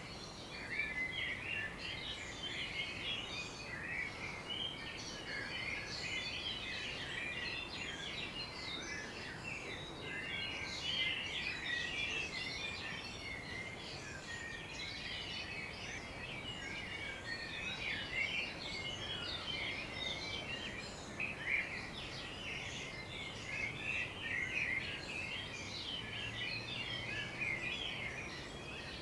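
Many songbirds singing and chirping together in a morning chorus, an unbroken tangle of quick high chirps and trills, over a faint low background hum.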